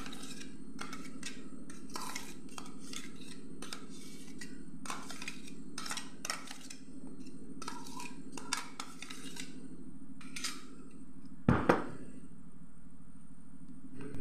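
Metal spoon scraping and clicking against a stainless steel bowl as mango pulp is spooned into milk, in many short strokes, with two louder knocks about eleven and a half seconds in. A steady low hum runs underneath.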